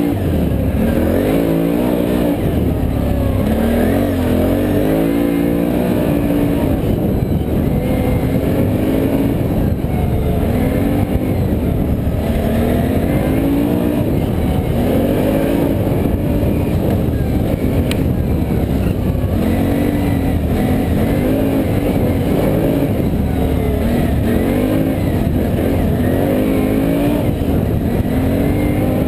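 Can-Am Renegade ATV's V-twin engine pulling along a trail, its revs climbing and dropping again every couple of seconds as the throttle is worked.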